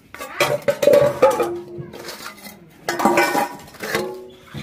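Metal cooking pots, bowls and plates clanking and ringing as they are handled and stacked while being washed by hand: a run of knocks in the first second and a half, and more around three and four seconds in, each leaving a short ring.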